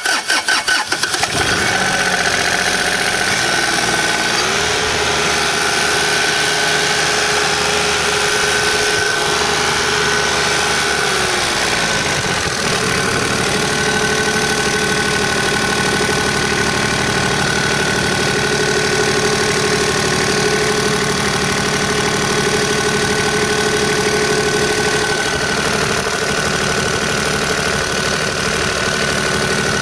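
Kubota mini excavator's diesel engine catching right at the start and running steadily, with a dip in pitch about twelve seconds in. It runs smoothly and evenly, a sign of a healthy engine.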